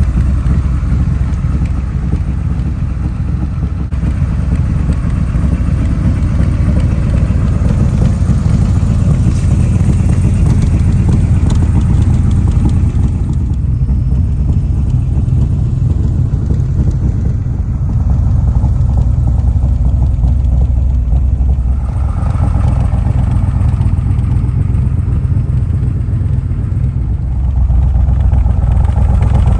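Backdraft Racing Cobra's 427 V8 with eight-stack injection idling steadily, its sound mostly low-pitched, swelling a little louder about two-thirds of the way in and again near the end.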